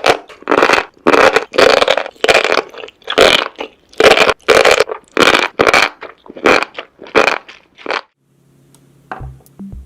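Close-miked eating of seafood: loud crunchy bites and chews in short separate bursts, about two a second. After about eight seconds the eating stops and a drum-machine beat with a bass line starts.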